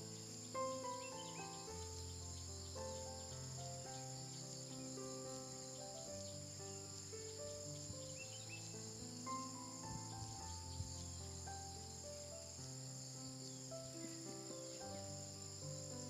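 Soft background music, a slow melody of changing notes, over a steady high-pitched insect drone.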